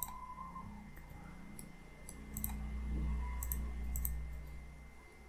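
Computer mouse clicking: a handful of separate short clicks spread a second or so apart, over a low steady hum.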